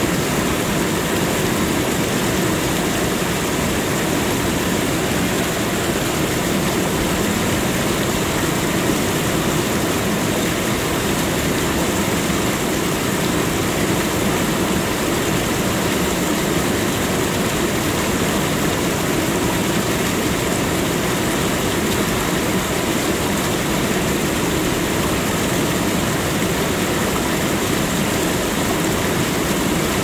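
Steady rushing noise of a large waterfall, even and unbroken throughout.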